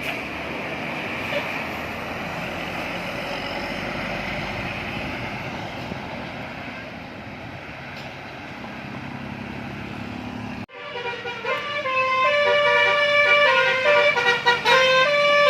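Steady road and engine noise of a running vehicle, cut off abruptly about eleven seconds in. Then a bus's basuri-style musical horn plays a flute-like tune of short notes stepping up and down, louder than the noise before it.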